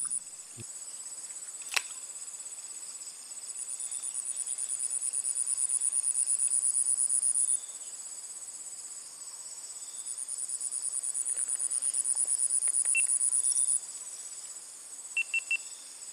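Insects chirring in a steady high drone, joined twice by a fast-pulsing high song that swells over several seconds and then cuts off abruptly. A single sharp click comes about two seconds in.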